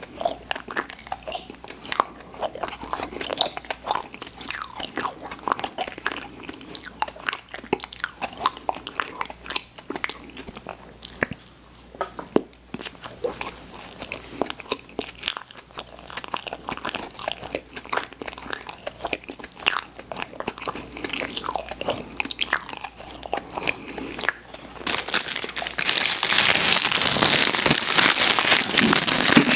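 Close-miked chewing and biting of candy, with many small crunchy, wet mouth clicks and smacks. About four seconds before the end a louder, dense crackling starts.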